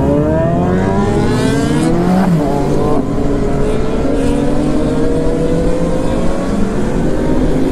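Motorcycle engine accelerating hard, its pitch climbing steeply, then dropping at a gear change about two seconds in and climbing again more slowly, over low wind rush.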